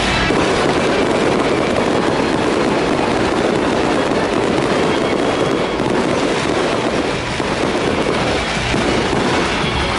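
Stadium fireworks show: a dense, continuous barrage of bangs and crackling.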